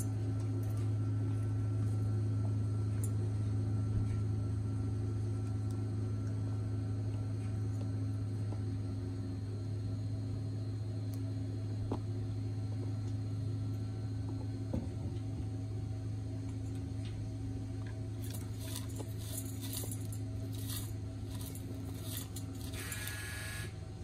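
A steady low motor-like hum. A few faint high chirps come over it in the last several seconds, and a short bird call just before the end.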